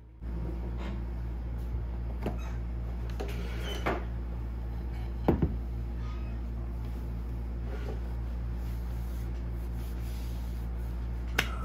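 A steady low hum, with a few light knocks and clunks of a ceramic plate and hands on a wooden tabletop as the plate is set down. The loudest is a quick double knock about five seconds in.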